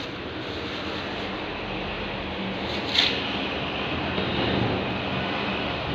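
Steady rushing background noise with a single short knock about three seconds in.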